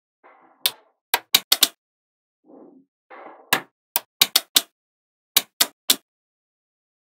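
Small magnetic balls clicking sharply as they snap together, about a dozen clicks in quick irregular clusters. Twice, briefly, a softer rattling sound of the balls shifting comes between the clicks.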